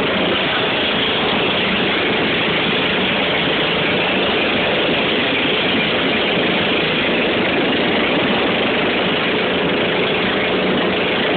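Small motorboat's engine running steadily under way, mixed with the rush of wind and water along the hull.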